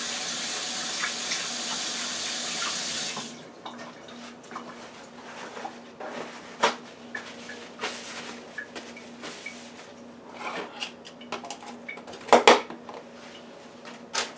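Kitchen tap running as hands are washed at the sink, shut off suddenly about three seconds in. Then scattered clicks and knocks of handling things at the counter, the loudest a couple of knocks near the end.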